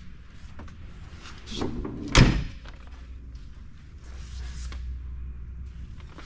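A door slamming shut once, loud and sudden, about two seconds in, with a short echo of a large hall; a low hum runs underneath.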